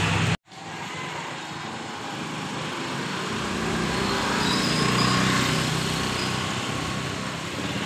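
Street traffic noise with a small engine running, growing louder toward the middle and then easing off.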